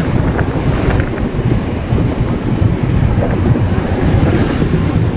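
Wind rushing over the microphone on a moving motorbike, a steady low rumble with motorbike engine noise underneath.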